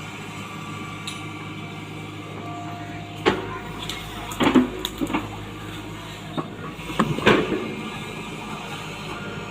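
Hitachi Zaxis 120 excavator's diesel engine running steadily, with a handful of sharp clanks from the working machine: one about three seconds in, a cluster a second later, and two more around seven seconds.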